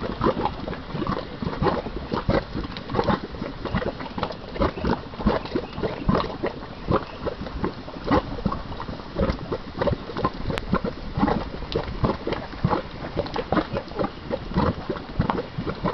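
Volcanic mud pot bubbling, with quick irregular plops of thick mud, several a second.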